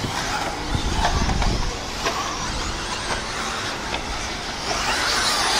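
10th-scale RC truggies racing on an off-road dirt track: a steady mix of small motors whining and tyres on the dirt, rising and falling as the trucks pass.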